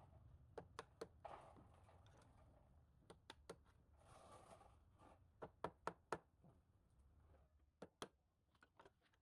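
Faint, irregular light clicks and knocks, about a dozen of them, with two brief soft rustles about a second in and about four seconds in.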